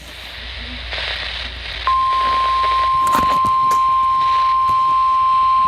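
Weather-radio warning alarm tone: a single steady tone that switches on about two seconds in, over radio hiss with scattered crackles. It is the alert signal that comes before a warning is read out.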